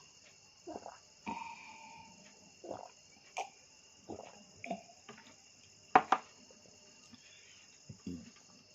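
Close-up eating sounds: chewing and lip smacks, short and irregular, with a sharp double click about six seconds in. A steady, high-pitched chirring runs underneath.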